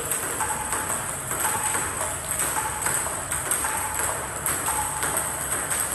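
Table tennis balls knocking on the table and paddles in a quick, even rhythm of about two hits a second, as balls are fed one after another from a basket.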